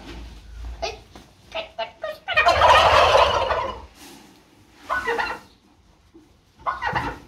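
Flock of white domestic turkey toms gobbling: a few short calls, then one long, loud gobble from about two to four seconds in, with more brief gobbles after.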